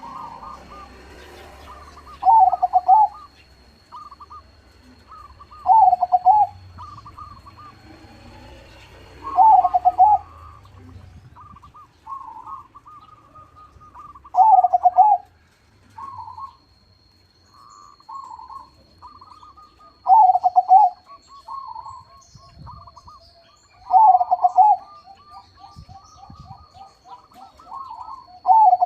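Perkutut crossing (zebra dove, local × Bangkok cross) cooing. Seven loud, rolling coo phrases come a few seconds apart, with softer quick coo notes between them.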